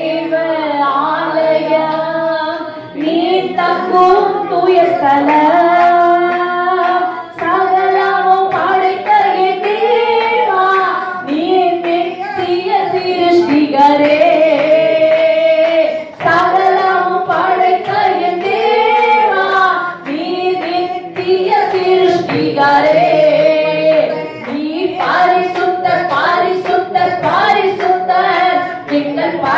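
A woman singing a Tamil Christian devotional song solo into a microphone, in long held phrases with short breaks between them, with sharp clicks scattered through.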